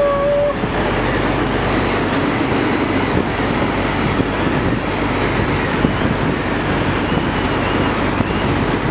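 Steady rush of wind on the microphone and breaking sea around a trolling sportfishing boat, with the boat's engine running beneath. A short held shout comes right at the start.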